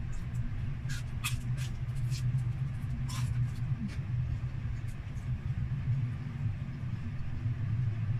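Crisp crunching from chewing deep-fried chicharon bulaklak, a few sharp crunches in the first few seconds, over a steady low hum.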